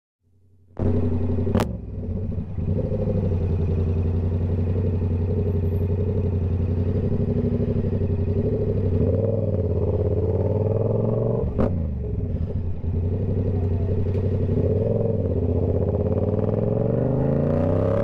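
Yamaha R7 motorcycle engine running steadily at highway cruise, starting abruptly about a second in. Two sharp clicks, each followed by a brief dip in the engine sound, come early and again about two-thirds of the way through. The engine note rises near the end as the bike accelerates.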